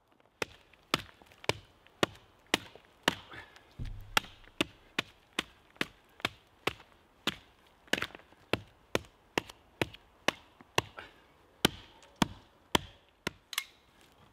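Small hatchet chopping into a fallen, moss-covered log: sharp, even strikes of steel into wood, about two a second.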